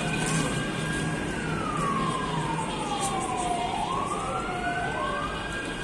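A siren wailing, its pitch sliding slowly down over about two and a half seconds and then climbing back up.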